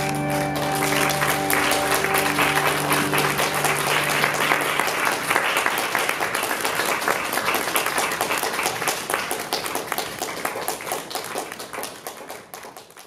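Audience applauding over a held organ chord at the end of the music. The chord dies away about four seconds in, and the clapping carries on, then fades and stops near the end.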